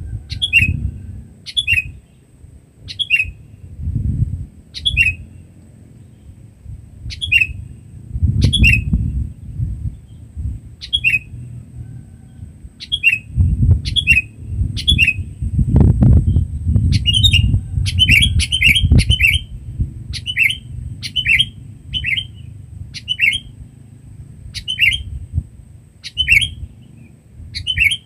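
Sooty-headed bulbul (kutilang) giving loud, short calls, about one a second, coming in quicker runs of several notes in the second half. A low rumble runs underneath.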